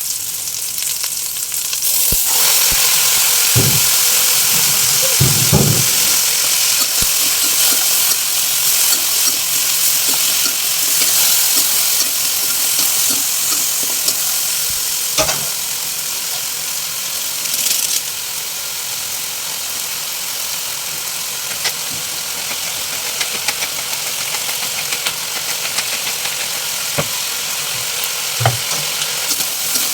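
Food sizzling in a hot pan, getting louder about two seconds in, with scattered clicks and knocks of a utensil stirring against the pan.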